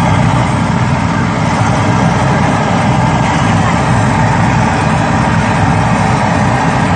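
Potato chips deep-frying in a large wok of hot oil, sizzling over a loud, steady low rumble that does not change.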